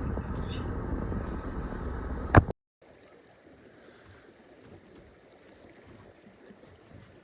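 Steady low rumble of vehicle travel noise, ending abruptly in a loud click about two and a half seconds in. After that, only a faint steady hiss with a thin high tone.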